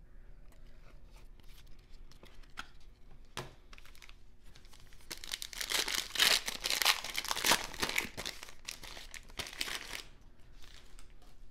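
Foil wrapper of a Bowman baseball card pack being torn open and crinkled, loudest for about five seconds in the second half. A few light clicks come before it.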